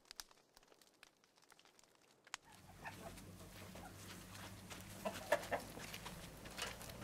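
Faint crackling of a coal fire, then chickens clucking in a farmyard: a run of short clucks comes in after about two and a half seconds over a low steady background hum.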